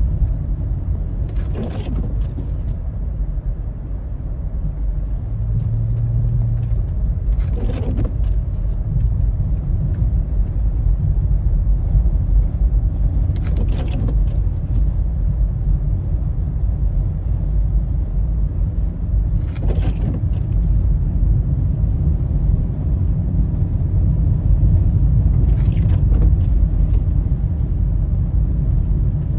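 Snowplow truck's engine running behind the listener, a steady low rumble. A short swish repeats about every six seconds.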